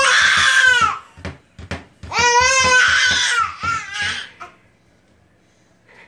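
A 14-month-old baby crying in frustration at a locked cabinet door: two long, loud wails, the second starting about two seconds in, with short sobs between them. The crying stops about four and a half seconds in.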